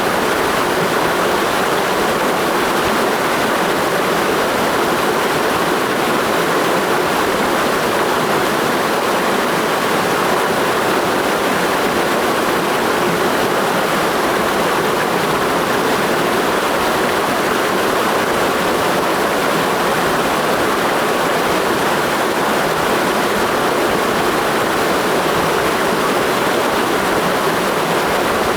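Clear mountain stream rushing over rocks, a steady, loud, even rush of water.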